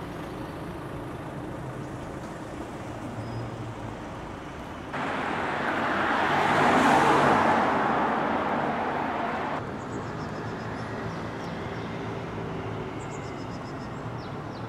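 Road traffic noise in a city street. In the middle comes a louder stretch that swells and fades, as a vehicle passes close by.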